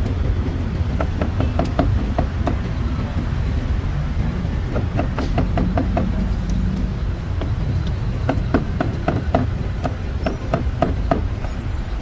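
Quick runs of sharp knocks, several a second with brief pauses, from a cleaver chopping grilled meat on a chopping board, over a steady low rumble of street traffic.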